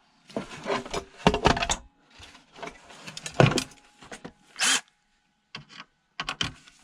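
Hand tools and metal parts being handled while dismantling an electronic unit: irregular clicks, knocks and rattles, with one short hissing burst about two thirds of the way through.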